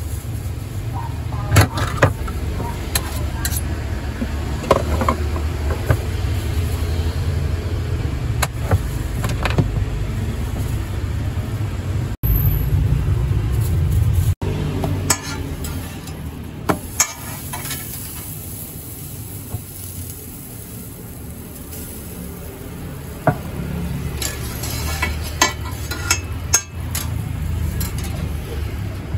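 Street-stall cooking of grilled bread: scattered clicks and taps of utensils, with faint sizzling, over a steady low rumble of street traffic.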